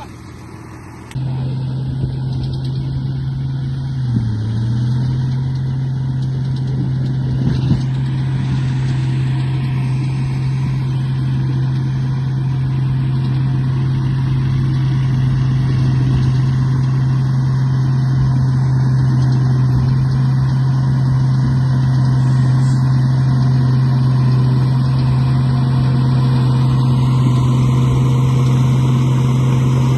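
RC bulldozer engine running steadily with a deep, even hum, starting about a second in. The pitch dips briefly and recovers a few seconds later.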